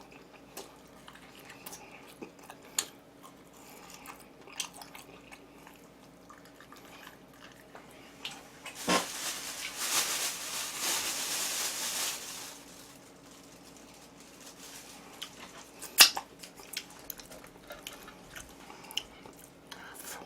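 Close-miked eating of jokbal (braised pig's trotter), likely gnawing at the bones: chewing with scattered small clicks and smacks. About nine seconds in comes a louder, rustling noise lasting roughly three seconds.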